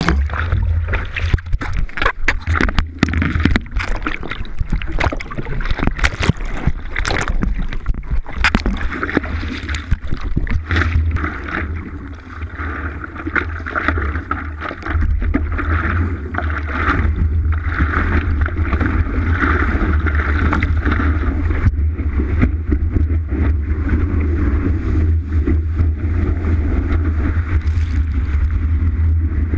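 Water rushing and splashing around a stand-up paddleboard, heard from a camera mounted low on the board's nose, under a heavy steady rumble of wind and water on the camera housing. Frequent sharp knocks and splashes, thickest in the first half.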